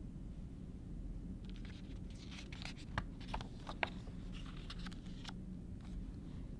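A page of a large picture book being turned by hand: paper rustling for a few seconds with a few short crackles as the sheet flexes and flips over, starting about a second and a half in and settling by about five seconds in.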